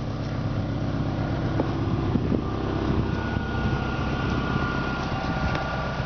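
A car engine idling steadily with a fast, even low pulsing; a faint steady high whine joins in about three seconds in.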